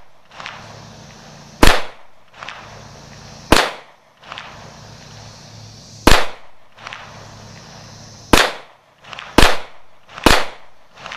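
Springfield XDM 5.25 .40-caliber semi-automatic pistol fired six times in slow, aimed single shots, one to two and a half seconds apart, the last three closer together.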